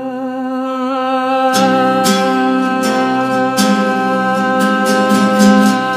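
A man's long held sung note, drawn out like a hum. About a second and a half in, a strummed acoustic guitar comes in under it, with regular strokes.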